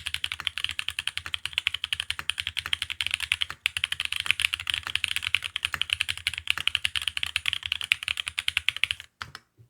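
Fast, continuous typing on an F1-8X custom mechanical keyboard with Holy Panda tactile switches in Cherry housings, mounted on an aluminium leaf-gasket plate with no foam. The typing stops about nine seconds in, after which a couple of last keystrokes sound.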